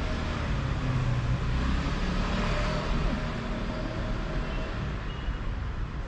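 Road traffic noise, a steady rumble with a hiss over it, louder around the middle and easing off a little near the end.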